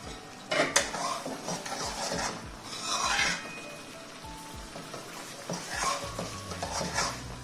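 Steel spoon stirring and scraping thick masala gravy in a steel kadhai, clinking against the pan in two bouts, one starting about half a second in and one near the end.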